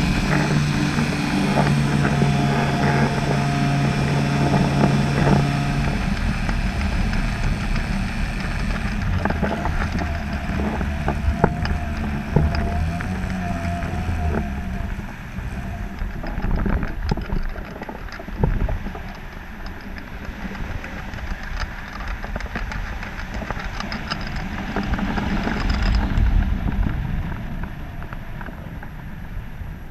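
A motor running steadily for about the first six seconds, then mostly wind buffeting the microphone with scattered knocks.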